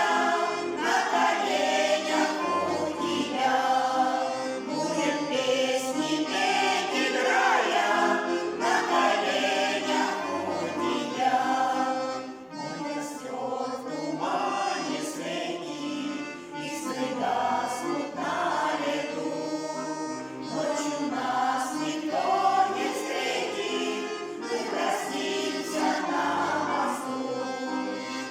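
Vocal ensemble of several voices singing a Russian romance together.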